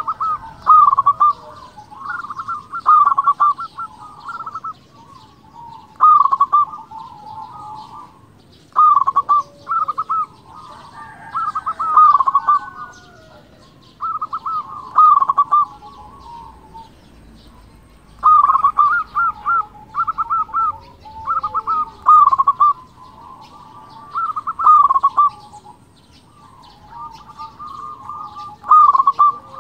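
Local zebra dove (perkutut) singing: about ten phrases of rapid staccato coos, one every two to three seconds, with a short pause midway. Faint high chirps sound behind them.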